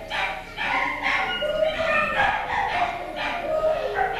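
Schnockerpoo puppies (cockapoo–miniature schnauzer cross) yipping and barking in a steady string of short, high calls, as puppies do when play-fighting.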